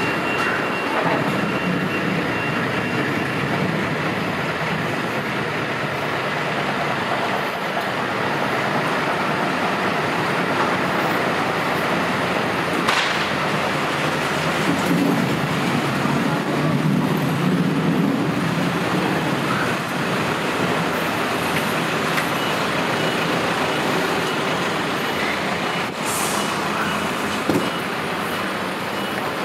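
Busy city street traffic: a steady wash of road noise and running vehicle engines, with the low engine hum of heavy vehicles passing close by around the middle. A brief sharp sound about halfway through and another near the end.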